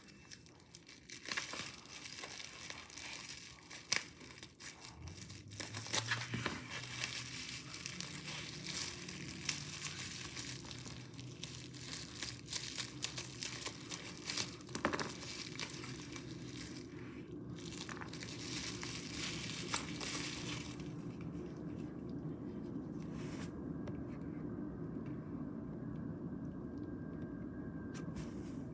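Plastic packaging crinkling and tearing as a slime order is unwrapped, with many short sharp crackles. About two-thirds of the way through the crinkling dies down, leaving a steady low hum.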